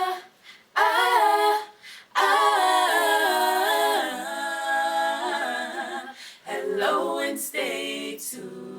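A small group of women singing a cappella, with no instruments: a short phrase about a second in, a long held phrase from about two seconds, and another phrase near the end.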